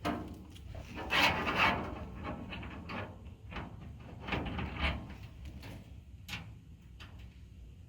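Parts of a smoker being handled and fitted during assembly: two bouts of scraping and rubbing, about a second in and again around four and a half seconds, then a few light clicks and knocks.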